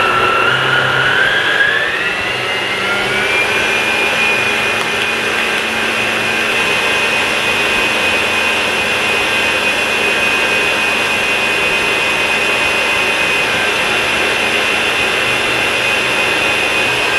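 Kenwood Chef stand mixer running at high speed, whisking eggs and sugar in its glass bowl. Its motor whine rises over the first few seconds as it comes up to speed, then holds steady.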